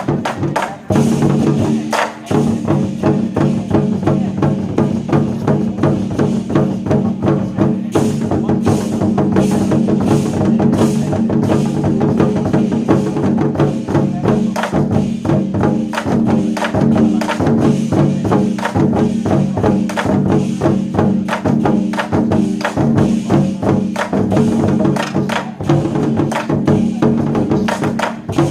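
War drums beaten in fast, dense strokes together with a steady pitched backing track, in an ensemble drum performance.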